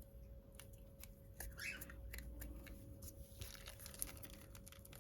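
Faint clicks and a brief rustle from small containers and packaging being handled, over a steady faint hum.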